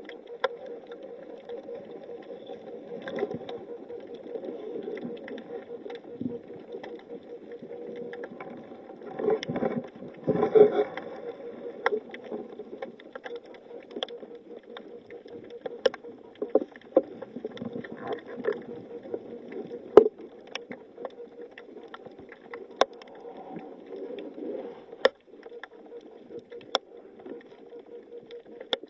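Underwater sound picked up by a camera in its housing: a steady hum with scattered sharp clicks, and a louder gurgling rush of bubbles about nine to eleven seconds in, typical of a scuba diver exhaling through the regulator.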